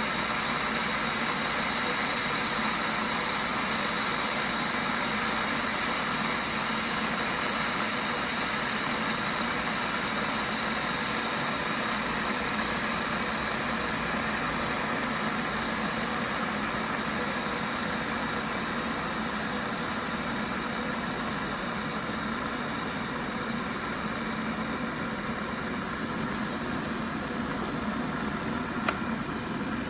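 Hamilton Beach 1500-watt glass electric kettle heating water: a steady rushing rumble from the water coming up to the boil, with a single click near the end.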